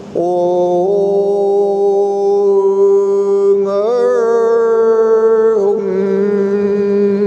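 A voice chanting an invocation in long held notes over a steady drone. The note steps up slightly about a second in, glides higher near four seconds, and drops back near six seconds.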